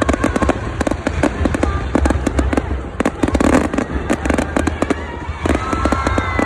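Fireworks display: a rapid, continuous barrage of bangs and crackles from exploding shells, over a steady low rumble.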